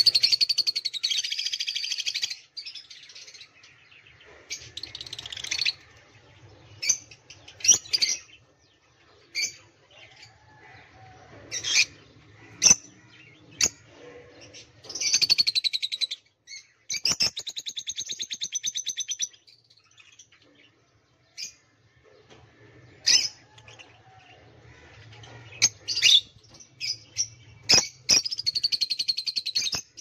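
Lutino peach-faced lovebirds chattering: repeated bursts of rapid, high chirping lasting a second or more, with short sharp chips in between.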